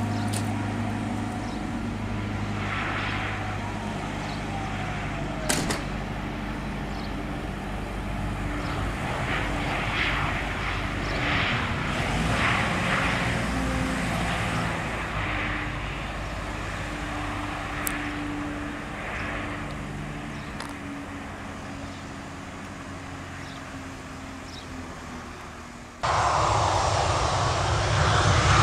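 Boeing 737-800's CFM56 jet engines heard across the airfield during the landing roll: a steady rumble with a whine that falls in pitch early on. Near the end it cuts abruptly to much louder jet engine noise with a rising whine as the engines spool up on the runway for take-off.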